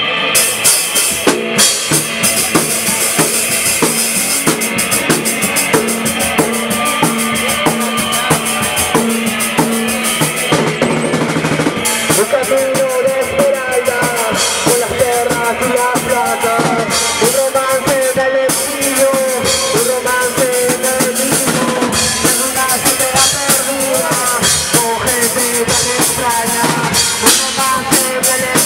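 A live rock band playing loudly, with a drum kit hitting fast and busily under the guitars. About twelve seconds in, a wavering, higher lead melody line comes in over the drums.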